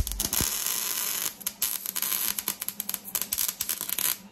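MIG welder crackling steadily as it lays a weld on the car's sheet-steel body, with a brief break near the end.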